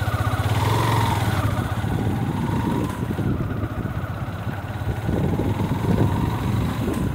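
Engine of a moving road vehicle running steadily as it drives along, with road and wind noise.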